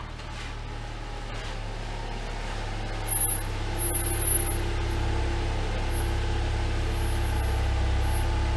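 2012 Scion tC's 2.4-litre inline-four engine running as the car creeps slowly forward, growing louder as it draws near. A few short, high squeaks come about three to four and a half seconds in.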